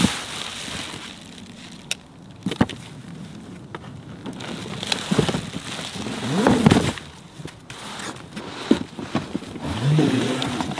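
A cardboard shipping box being handled: stiff flaps pulled open and cardboard scraping as a boxed item is slid out, with a few sharp knocks and clicks.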